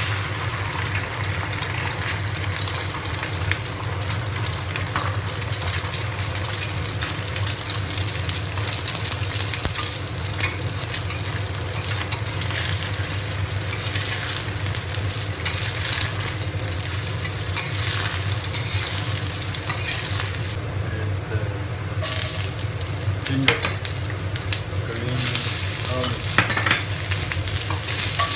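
Beaten eggs sizzling as they fry in hot oil in a black wok, with a metal spatula scraping and tapping against the wok as the egg is stirred and turned. The sizzle drops out briefly about two-thirds of the way in; near the end, chopped green onion and ginger sizzle in the oil.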